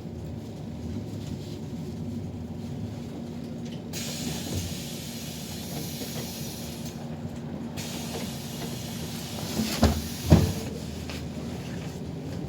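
Inside a moving city bus: a steady low hum from the bus running. About four seconds in a hiss starts, breaks off briefly and returns, and two sharp knocks near the end are the loudest sounds.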